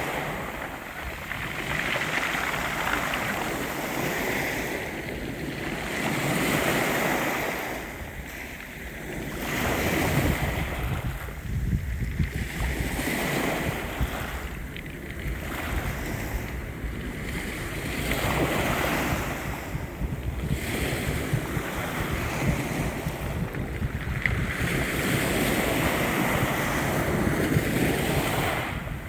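Sea waves washing in, the surf swelling and fading every few seconds, with a low rumble underneath.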